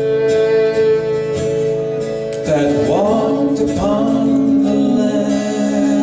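Live folk music led by a violin playing long held notes, with a sliding, bending stretch of pitch about halfway through.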